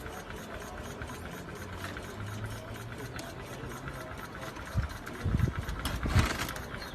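Homemade 150cc V12 petrol engine of a model Tiger tank being cranked over in a starting attempt, with a steady rapid pulsing, then louder irregular low sputters over the last two seconds. The builder says something is wrong with the engine.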